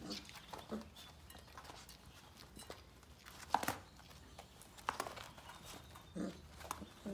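Sheepadoodle puppies playing and tussling: scattered light taps and scuffles. The loudest is a short sharp sound about halfway through.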